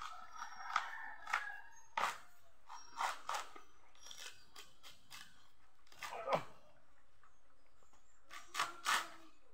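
A coconut's fibrous husk being pried and torn off by hand: irregular crunching and ripping, in separate sharp tears every second or so, loudest about six seconds in and near the end.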